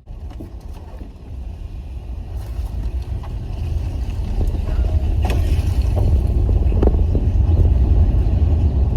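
Low rumble of a moving car's road and wind noise, growing louder after a couple of seconds, with a few faint knocks.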